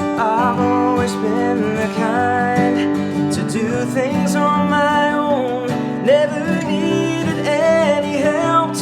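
Instrumental opening of a Christian song: strummed acoustic guitar under a gliding melody line.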